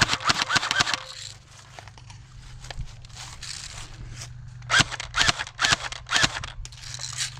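Airsoft guns firing in short bursts of rapid cracks: one burst near the start, then several more in the second half, over a steady low hum.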